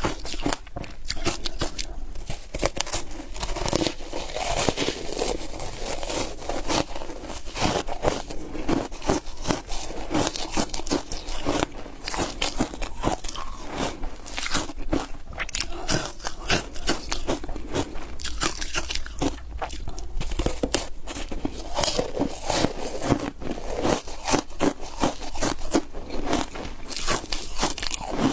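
Foam ice coated in matcha powder being bitten and chewed close to the microphone: a dense, continuous run of sharp crunches and crackles as the brittle ice breaks between the teeth.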